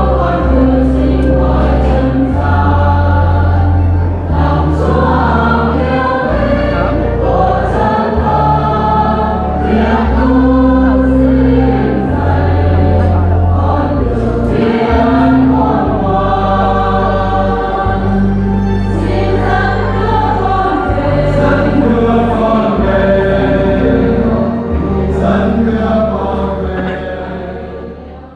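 A choir singing a hymn over sustained low bass notes that change every couple of seconds, fading out near the end.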